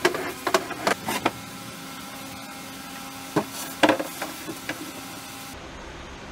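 Sliding barn doors on a cabinet rolled along their metal track, with several sharp knocks as the doors stop against each other and the track ends: four in the first second or so, then another cluster about three and a half seconds in.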